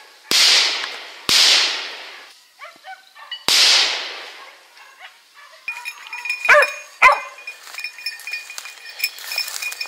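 Three gunshots, about one and two seconds apart, each trailing off in a long echo. Then a dog gives two loud barks about half a second apart, amid a light metallic jingling and the rustle of brush.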